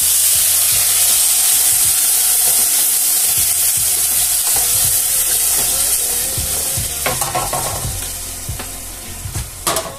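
Rice frying in a hot pan: a loud sizzle that comes on suddenly and slowly dies down, with a couple of sharp knocks near the end.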